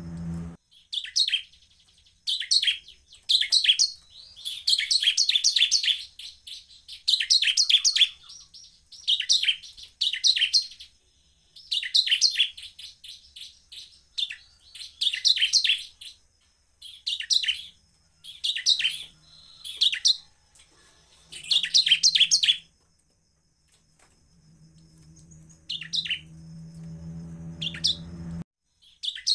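Bar-winged prinia (ciblek) singing: repeated bursts of rapid, high chirps, each about a second long, with short pauses between. A low steady hum sits underneath near the end.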